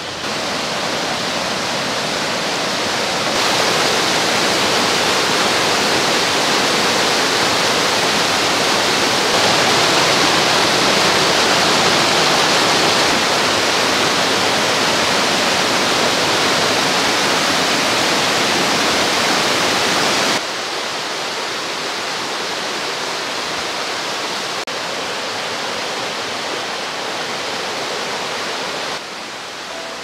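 Loud, steady rush of a fast mountain stream's water over rocks and cascades. It grows louder about three seconds in and drops back to a lower level about twenty seconds in.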